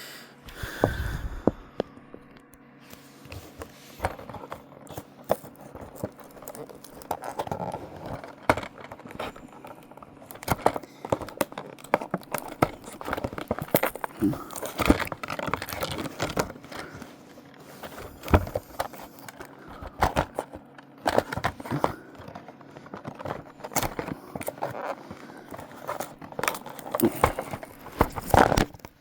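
Toy packaging being opened by hand: plastic and cardboard crinkling and tearing, with irregular clicks, crackles and scrapes.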